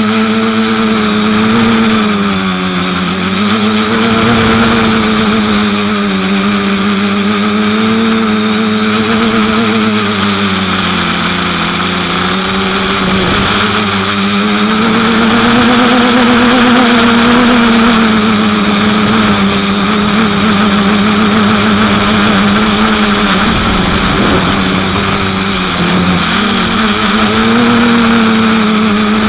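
A motor running without a break, its steady pitched drone slowly rising and falling in speed.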